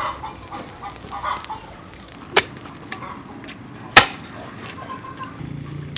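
Chickens clucking, then two sharp clicks about a second and a half apart, the second the louder.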